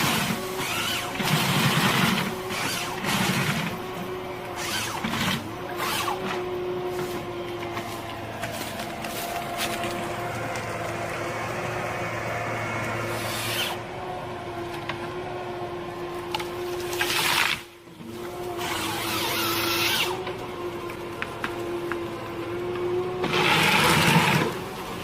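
Heavy machinery running with a steady whine, broken by repeated louder noisy bursts of working sound, and cutting out briefly about two-thirds of the way through.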